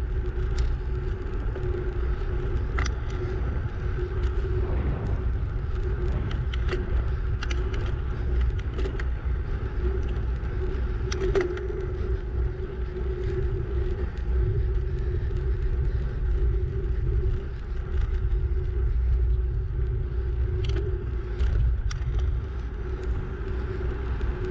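Wind noise on the microphone of a camera riding on a moving bicycle: a steady low rumble with a faint steady hum and scattered small ticks over it.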